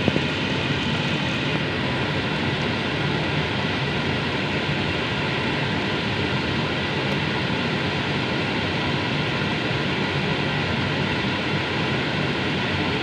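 Steady whooshing drone with a faint hum, kitchen noise from a stove as fish curry simmers in a nonstick pan.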